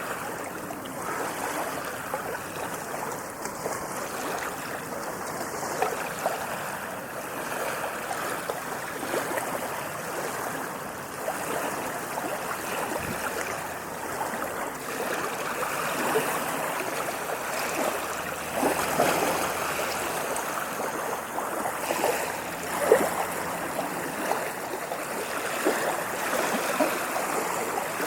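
Small waves splashing and lapping on a beach, a continuous wash of water with scattered louder splashes, the sharpest about two-thirds of the way through.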